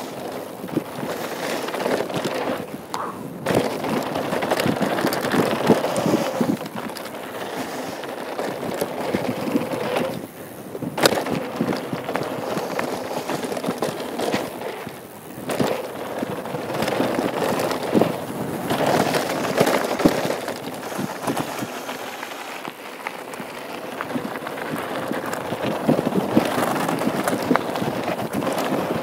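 Orange 2013 Norco Truax mountain bike riding fast down a dirt-and-gravel trail: tyres crunching over loose gravel, with frequent crackling clicks and clattering knocks as the bike rattles over bumps and rocks.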